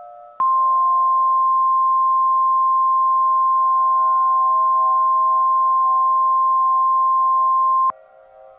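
Emergency-alert warning tone: one loud, steady, high single tone held for about seven and a half seconds, starting abruptly and cutting off sharply, over a soft sustained background music bed. It signals that a warning broadcast follows, here a tornado warning.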